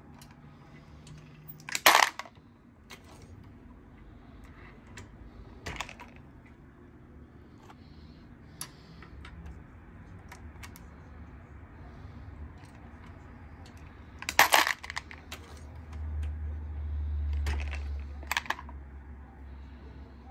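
Metallic clinks and clatters from handling a reloading press and brass .45 Long Colt cartridges. There are two loud clatters, one near the start and one about two-thirds through, with fainter clicks between them and a low rumble after the second.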